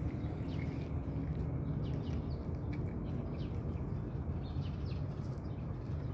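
Cat crunching dry kibble, with short crisp crunches several times a second over a steady low outdoor rumble.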